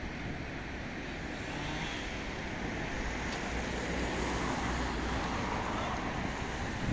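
Steady motor-vehicle noise: a low engine rumble with a traffic-like hiss, swelling slightly toward the middle.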